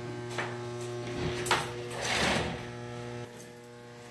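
A steady machine hum that cuts off about three seconds in, with a couple of sharp knocks and a short scraping rush around the middle as the go-kart is handled.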